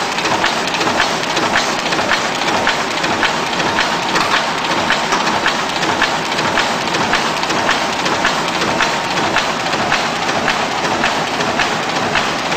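Automatic sheet-fed offset printing machine running: a steady mechanical clatter with evenly repeating clicks.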